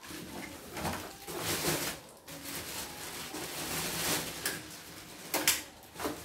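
Clear plastic wrapping rustling and crinkling in several bursts as a white plastic part is lifted out of a cardboard box and unwrapped.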